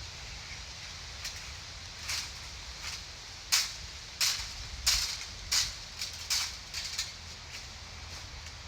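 A rake scraping through leaves and ground litter: a series of short raking strokes, louder and quicker in the middle.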